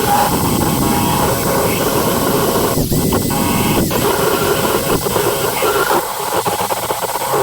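Drill spinning a deburring tool against the cut edges of a 1/4-inch steel angle bracket: a continuous harsh metal-on-metal grinding over the drill's steady whine, briefly easing twice near the middle.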